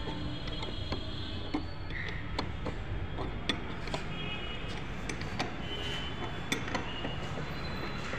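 Irregular light clicks and metallic taps of a hand tool working on a Tata Tiago's rear seat fittings, over a steady low rumble.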